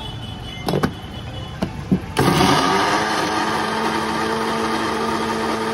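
A few knocks, then about two seconds in an electric mixer grinder starts abruptly and runs steadily with a hum, grinding guava with sugar and ice for the drink.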